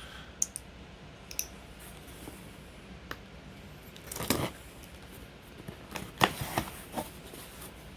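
A shipping package being opened by hand: scattered small clicks and snaps, a short scraping tear about four seconds in, and a few sharper clicks near the end.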